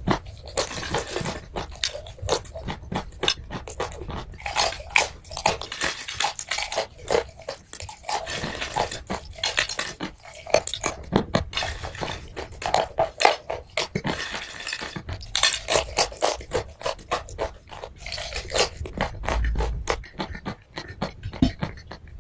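Dense, irregular crunching and crackling: many sharp clicks close together with no steady rhythm, as something brittle is crushed or bitten.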